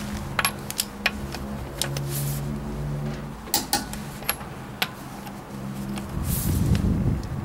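Metal clicks and clinks of a torque wrench's socket being fitted onto wheel lug nuts by hand, some with a brief metallic ring. A louder scraping rustle comes near the end.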